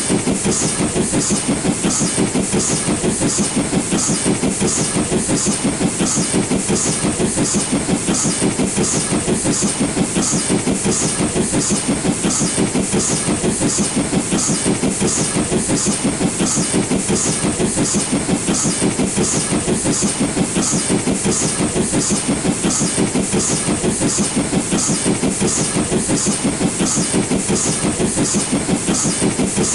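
LNER B12 4-6-0 steam locomotive working hard, pulling a train up a gradient, with a steady, even chuffing exhaust beat that keeps the same pace.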